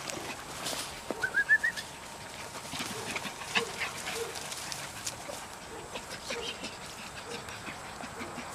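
Dutch Shepherd puppies playing and tussling on grass: scattered small yips and scuffling sounds. About a second in there is a quick run of five short high chirps.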